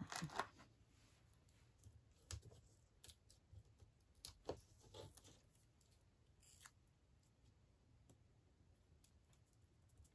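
Near silence, broken by faint, irregular clicks and short rustles of small card pieces being handled and pressed down on a craft mat.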